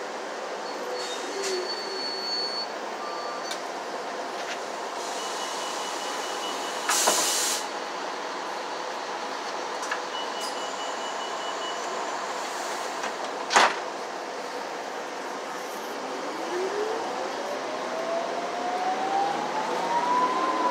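Transit bus interior on the move: steady engine and road noise, with a short loud hiss of air about seven seconds in and a single sharp knock a little later. Near the end a whine rises steadily in pitch as the bus picks up speed.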